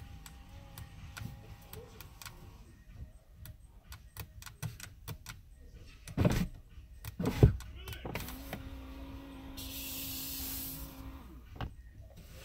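Electric motors of an Audi A8's rear door sunshade and power window running in turn. A faint hum in the first few seconds, two thumps around the middle, then a steadier motor hum lasting about three seconds, with a brief hiss near its end.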